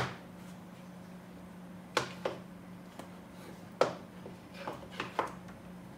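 Wooden cigar boxes being set down and pushed into place on a wooden humidor drawer: a handful of light knocks and clacks, the sharpest about two seconds in and just before four seconds in, over a steady low hum.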